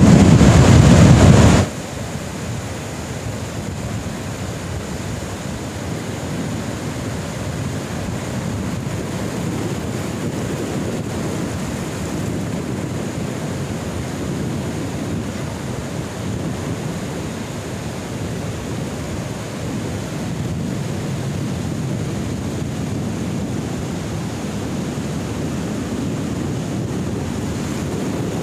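Heavy wind buffeting on the microphone for about the first two seconds, cutting off abruptly. Then a steady wash of sea surf breaking, with wind.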